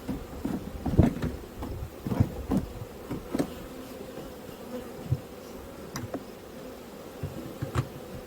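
Honey bees buzzing around an opened hive in a steady hum, with short wooden knocks and scrapes, most of them in the first few seconds, as the hive's frames and boxes are handled.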